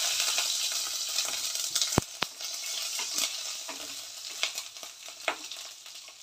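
Green chillies and mustard seeds sizzling and crackling in hot oil in a kadhai, stirred with a wooden spatula; the sizzle fades steadily. Two sharp clicks come about two seconds in, then scattered pops.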